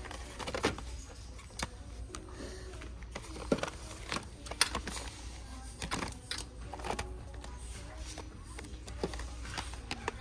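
Paperboard boxes of bar soap being handled on a glass shelf: an irregular string of light clicks, taps and scrapes as boxes are touched, lifted and set back down, over a low steady store hum.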